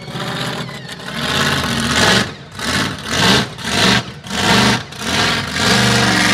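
Monster truck engine revving hard in repeated surges, about one a second, as the truck drives over rough ground.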